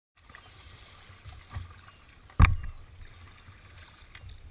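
Water sloshing against a kayak hull under way, with a low wind rumble on the microphone and a few light knocks. One sharp knock about two and a half seconds in is the loudest thing.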